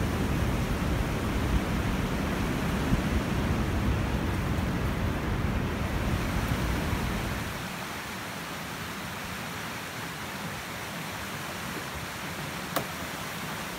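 Wind buffeting the microphone, a low rumble with a rush of noise above it. About seven and a half seconds in the rumble falls away, leaving a quieter, even outdoor hiss, and a single sharp click sounds near the end.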